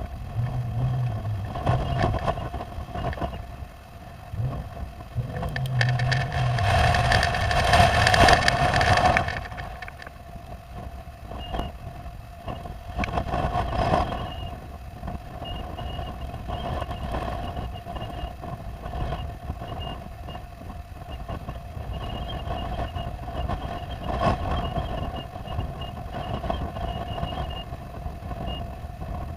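Wind rumbling and buffeting on a rooftop dome camera's microphone, with a steady hum underneath; a strong gust swells from about six seconds in and eases off after about nine.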